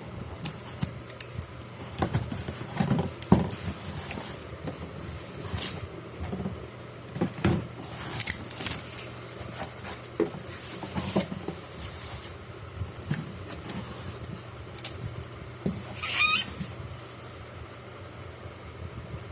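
Unpacking and handling noises: rustling packaging with scattered clicks and light knocks. A brief squeak comes about sixteen seconds in.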